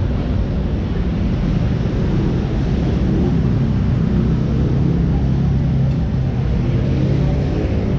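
Street traffic noise: a motor vehicle engine running close by over a steady low rumble.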